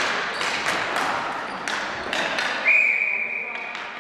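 Ball hockey sticks clacking and a plastic ball knocking in an echoing gymnasium. Then, about two-thirds of the way in, a referee's whistle gives one steady blast of about a second, stopping play.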